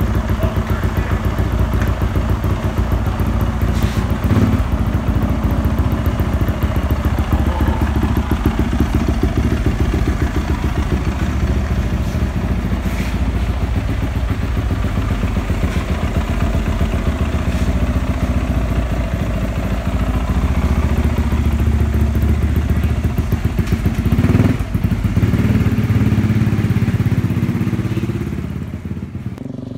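Yamaha 450 four-stroke dirt bike engine running, swelling louder for a few seconds near the end and then dying away.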